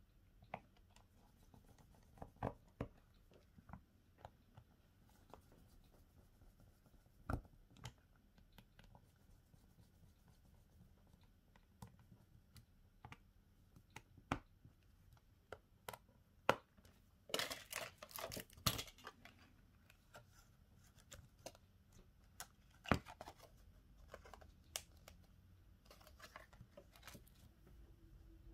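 Faint, scattered clicks and taps of small hand tools and parts on a Cat S60 smartphone opened for a battery replacement. A rustling scrape lasting about two seconds comes a little past halfway.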